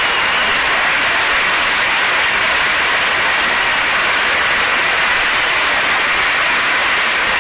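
Large convention crowd applauding, steady and unbroken.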